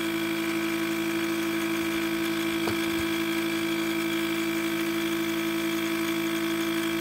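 Steady mechanical hum at one fixed pitch, like an idling engine or a running pump, with a single faint click about three seconds in.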